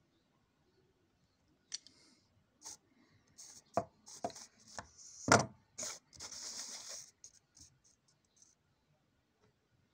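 Hand-operated metal hair clipper being worked by squeezing its handles: sharp metal clicks and snips with short rasping stretches as the toothed blades slide, and one louder knock a little past midway. The sounds start about two seconds in and end with a quick run of small clicks.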